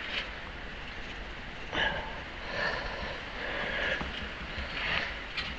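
A person breathing, with a single knock about two seconds in.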